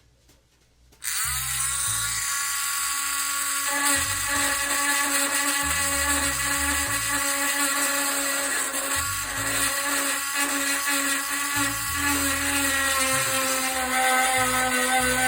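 A 100-yen-shop mini rotary tool (router) running at a steady high whine while engraving a metal barbecue grill. It starts about a second in, with a few brief dips as it bites.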